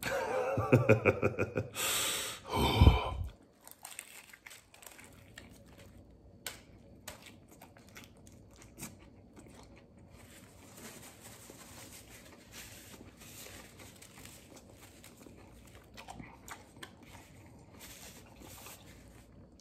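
A man's brief laugh and a low grunt in the first few seconds, then a mouthful of chicken sandwich being chewed, quietly, with small soft clicks.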